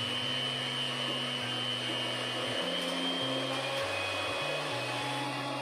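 Electric mixer whipping egg whites, running steadily with a high whine.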